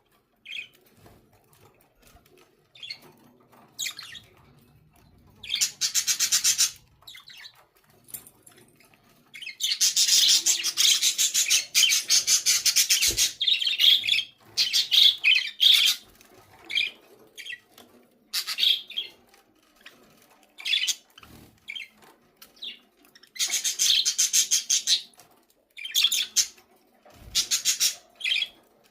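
Budgerigars chattering and squawking in repeated bursts of rapid, buzzy calls, the longest lasting about six seconds, with short chirps in between.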